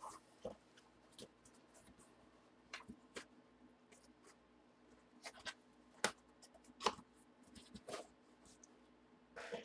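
Scattered light scrapes, taps and rustles of a cardboard box being handled and shifted by hand, with a few sharper clicks about six and seven seconds in.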